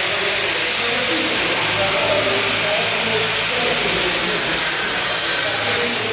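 Steady loud hiss filling a large hall, with faint voices under it. A sharper, higher hiss joins about four seconds in and cuts off suddenly about a second and a half later.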